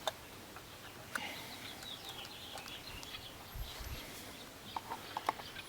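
Faint birdsong with scattered chirps, over a few small clicks and taps of handling, and a brief low thump midway.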